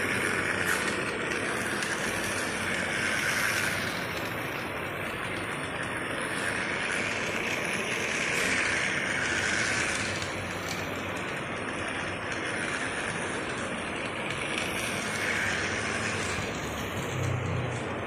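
Toy train running around a plastic track: a steady whirring rattle that swells and fades every few seconds as it circles the loop.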